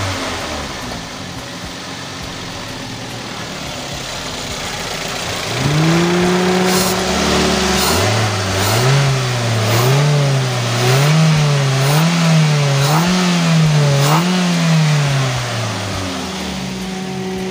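Toyota Avanza's fuel-injected petrol engine running with throttle-body cleaner in its intake. It drops back to a lower idle, then about six seconds in it is revved up and held. After that it is blipped up and down over and over, about once a second, with a faint click at each blip.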